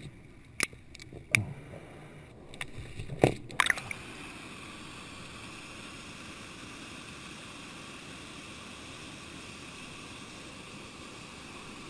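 A few sharp knocks underwater, then from about four seconds in a steady rush of flowing stream water at the surface.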